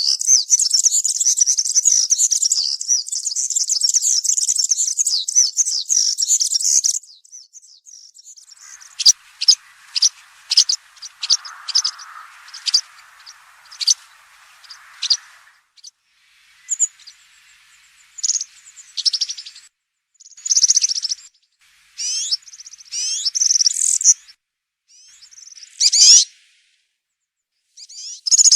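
European serin singing: a rapid, very high, jingling song runs without a break for about the first seven seconds. After a short pause it goes on in short separate bursts and notes with gaps between them.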